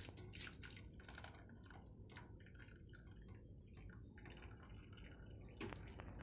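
Faint, irregular dripping and light clicks as water runs off a wire mesh strainer into a pot of hot water, with wooden chopsticks tapping the mesh. One sharper click comes near the end.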